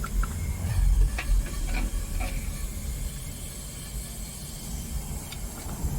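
Homemade propane furnace burner running with a steady low rumble and hiss, and a few light clicks in the first couple of seconds.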